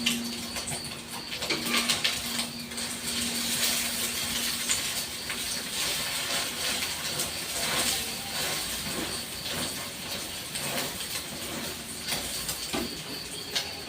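Eggs frying in hot oil in a pan: a steady sizzle with many small crackles and pops.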